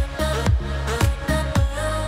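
Background music with a steady electronic dance beat, about two beats a second.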